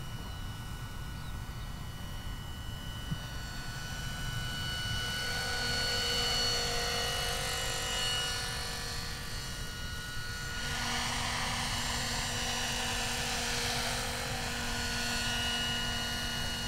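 Electric RC model helicopter (Minicopter Heli-Baby with a Plettenberg electric motor) in flight: a steady high whine from the motor and rotor drive. It grows louder about five seconds in as the helicopter comes closer.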